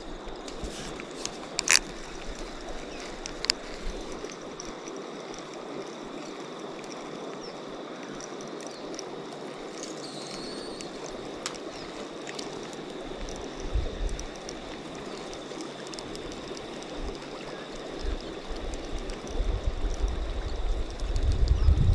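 River water running steadily, with a few brief sharp clicks. A low rumble, wind on the microphone, builds near the end.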